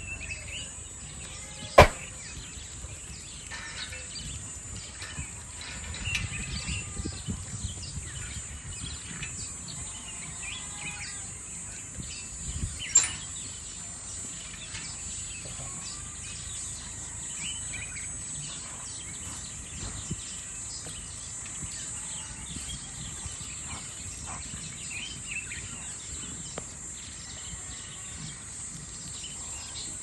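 Outdoor ambience of small birds chirping on and off, over a steady high-pitched hiss. Two sharp knocks stand out, about two seconds in and about thirteen seconds in.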